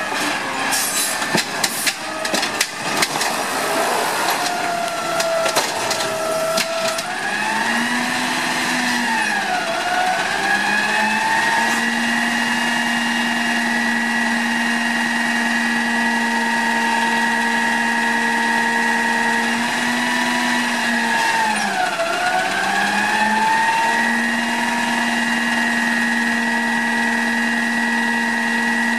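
Peterbilt garbage truck with an Amrep automated side-loader arm working a green-waste cart. The clamps grab it with a few clanks over the first several seconds. Then the hydraulics whine steadily while the arm lifts and dumps the cart, the pitch dipping and recovering twice.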